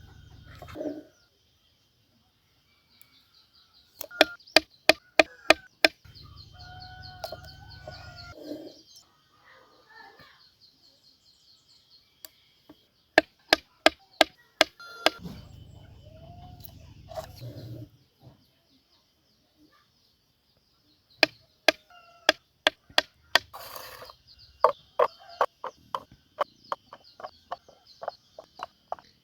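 A chicken clucking, broken up by runs of sharp chopping or knocking strokes at about four or five a second, over a steady high buzz.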